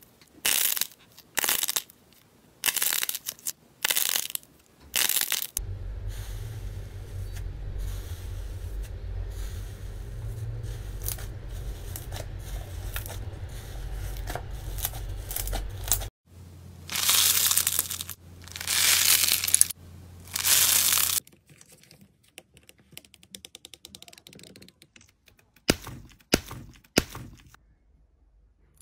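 Slime being pressed and squeezed by hand: a series of short crackling bursts about once a second, then a stretch of low handling rumble with faint pops, three longer loud crackling squeezes, and some quiet clicks and sharp snaps near the end.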